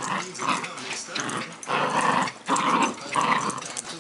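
Six-month-old Shetland sheepdog puppy growling in short repeated bursts, about two a second, while tugging on a cloth toy in play tug-of-war.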